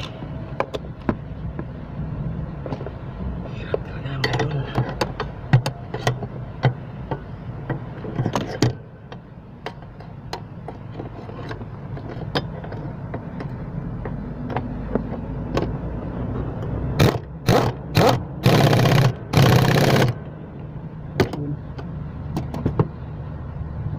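Cordless power driver run in a few short bursts and then two longer runs, tightening the mounting bolts of a clutch master cylinder under the dash. Clicks and knocks of metal tools and parts come throughout.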